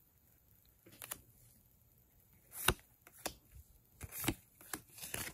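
Magic: The Gathering trading cards being handled, a handful of short, irregular snaps and slides as cards are moved one by one through a small stack in the hands.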